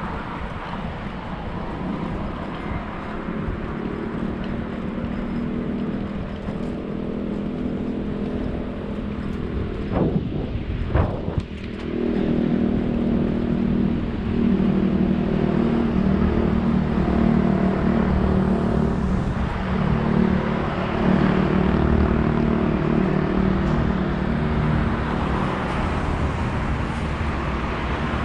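Steady road-traffic noise with vehicle engines running, heard while cycling along a road; it grows louder after about twelve seconds, and a few sharp knocks come about ten to eleven seconds in.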